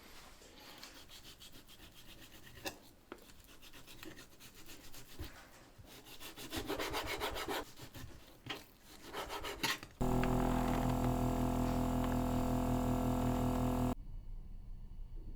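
Quick repeated rubbing or scraping strokes against a surface for about ten seconds, growing busier toward the end. Then a small kitchen appliance's motor runs with a loud steady hum for about four seconds and cuts off.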